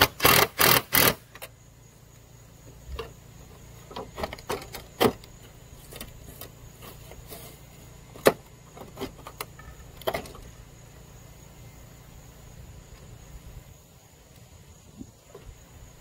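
A cordless drill runs in four short bursts in the first second or so. After that come scattered light clicks and knocks, with one sharper click about eight seconds in, from handling the perforated metal gutter guard.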